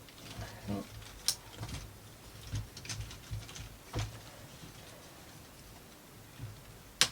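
Small clicks and knocks of plywood model parts being handled and pushed into their slots, then one sharp snap near the end as a piece clicks into place.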